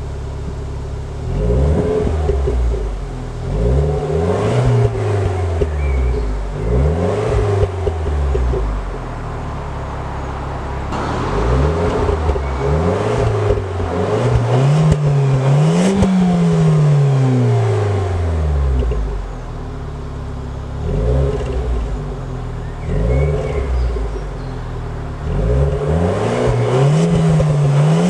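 Renault Clio 4 RS's 1.6-litre turbocharged four-cylinder engine, stock exhaust, idling and revved again and again, its pitch climbing and falling back with each blip. The longest revs, in the middle and near the end, go highest.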